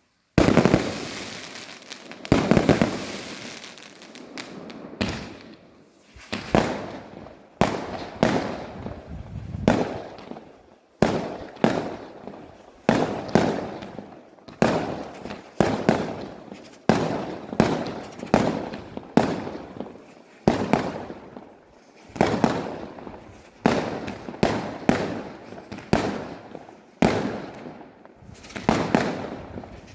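Aerial firework shells bursting in quick succession during a fireworks display: many sharp bangs, about one or two a second, each with an echoing tail.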